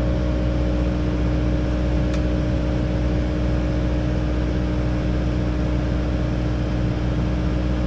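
Kubota 080 excavator's diesel engine running at a steady speed, a constant drone with a steady hum. A faint click about two seconds in.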